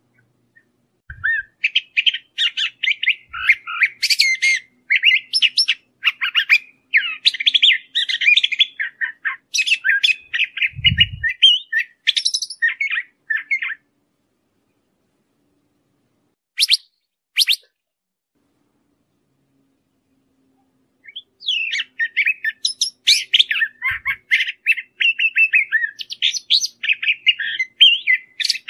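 A thrasher (huitlacoche) singing a long, rambling song of quick, varied phrases, pausing for several seconds midway with only two short notes before carrying on.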